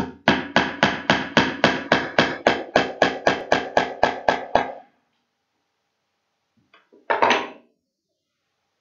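Small hammer tapping tiny nails into a wooden board to fix a sawtooth picture hanger, the nail held in pliers: a quick, even run of light blows, about four a second for some four seconds. A single brief clatter follows about seven seconds in.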